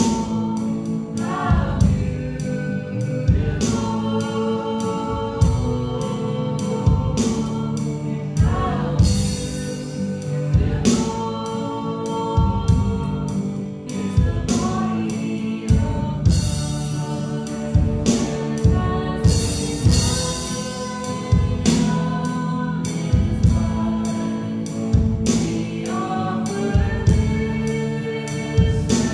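Worship song: voices singing over a band, with a drum kit keeping a steady beat.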